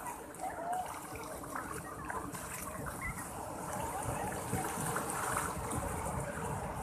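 Sea surf washing up a sandy beach: a steady rush of breaking waves and foam running over the sand.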